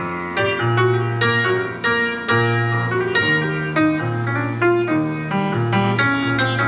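Instrumental break in a swing-style jazz song: piano accompaniment playing chords over a steady bass line, with no voice.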